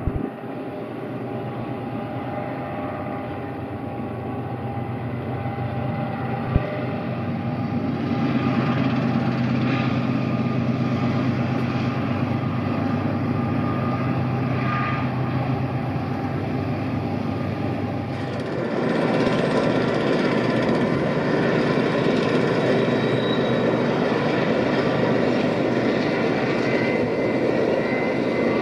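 BNSF freight train's GE ES44C4 diesel-electric locomotives (12-cylinder GEVO engines) working upgrade, a steady engine drone that swells about a quarter of the way in. About two-thirds through it changes to a louder, fuller rumble of the train. One sharp click a little before the quarter mark.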